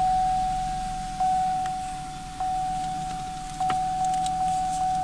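A 2001 Pontiac Bonneville's dashboard warning chime as the ignition is switched on. It is a single fixed-pitch ding repeating about every 1.2 seconds, each one fading before the next.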